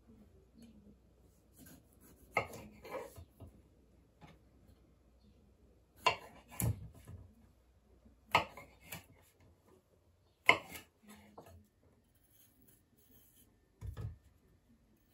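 Kitchen knife cutting thick aloe vera leaves on a wooden cutting board: about seven separate sharp cuts and knocks of the blade on the board, spaced irregularly.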